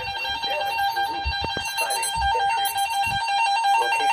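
Electronic alert tone warbling rapidly back and forth between two close pitches, with a few low thumps under it.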